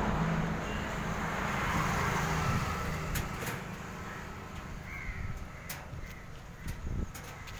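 Outdoor background: a low rumble that fades away over the first few seconds, then a few sharp clicks and a bird's short call about five seconds in.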